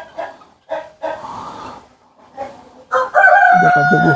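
Brahma chickens clucking in short calls, then about three seconds in a rooster crows: one loud, long call that holds its pitch and then starts to fall away.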